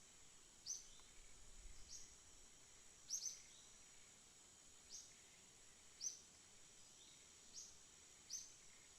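Faint outdoor ambience: a bird giving short, high chirps that drop in pitch, one every one to two seconds, over a steady, high-pitched insect drone.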